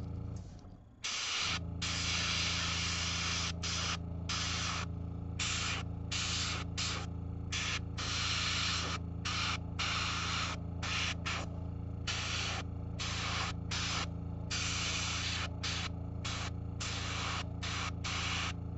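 Airbrush spraying in many short bursts, the hiss starting and stopping about once a second or faster as the trigger is worked to trace lines, over a steady low hum. Both briefly cut out about a second in.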